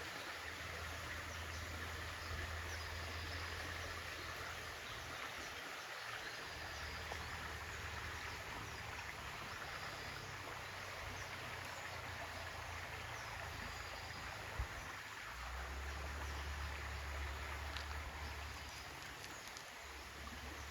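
A stream flowing, a steady rush of water throughout, with a low rumble underneath that drops out and returns a few times and a single sharp click about two thirds of the way through.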